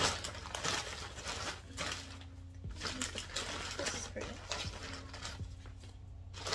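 Plastic mailer bag rustling and crinkling in irregular bursts as skeins of yarn are pulled out of it.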